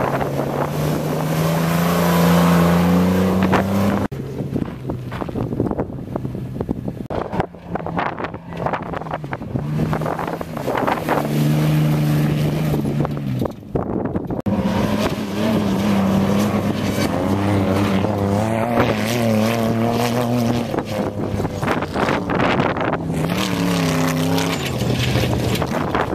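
Off-road desert-racing mini truck engines revving hard under load, their pitch climbing and wavering as the trucks accelerate and pass over dirt. The sound changes abruptly a few times, about 4 and 14 seconds in, from one truck to the next.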